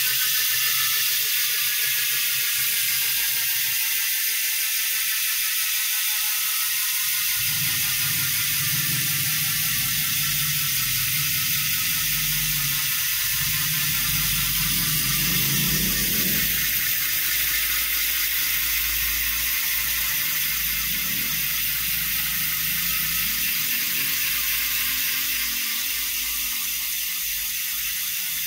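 Freehub of a carbon road bike's rear wheel buzzing steadily as the wheel coasts on a workstand, the fast clicking of the pawls slowly winding down as the wheel loses speed.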